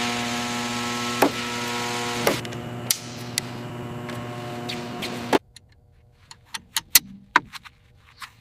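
A steady machine hum with a hiss, marked by a few sharp clicks, that cuts off abruptly about five seconds in; after it, a few faint clicks and taps.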